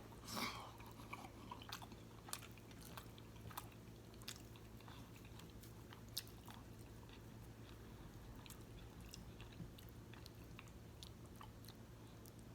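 Faint close-up mouth sounds of someone chewing fufu and egusi soup: soft chewing with many small wet clicks and smacks, a slightly louder one about half a second in. A steady low hum sits underneath.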